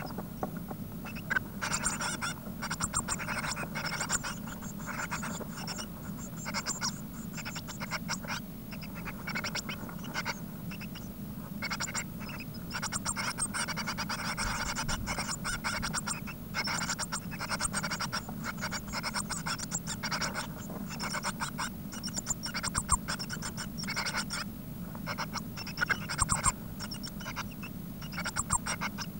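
Well-grown blue tit nestlings in a nest box, rustling and scratching about on the nest material in irregular bouts of raspy sound. A steady low hum runs underneath.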